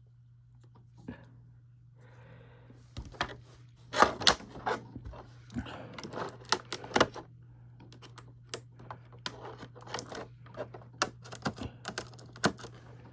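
Plastic packaging rustling, then a run of irregular sharp clicks and taps as an action figure and its accessories are handled and taken out of the box.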